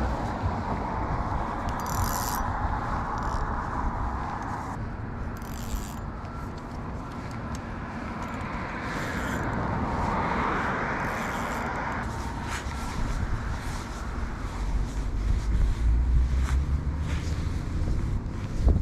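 Road traffic passing on the bridge, the tyre noise of cars swelling and fading, with a low rumble near the end.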